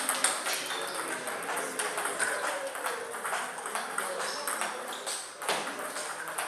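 Table tennis ball clicking back and forth off the bats and table during a rally, in quick, irregular succession, with a sharp hit right at the start.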